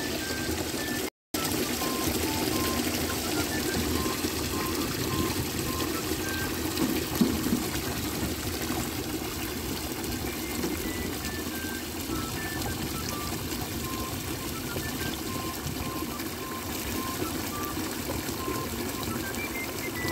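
Water from a hose rushing steadily into a drum, churning a foaming mix of pesticides and fungicides. The sound cuts out briefly about a second in. A faint melody of single notes plays over it.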